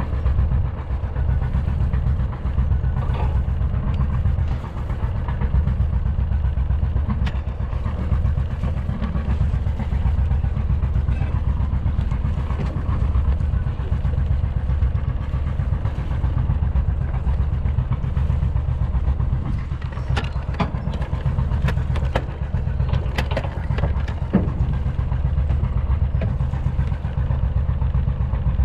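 Sailboat's inboard diesel engine running steadily under way, a low continuous drone. A few sharp knocks come near the end.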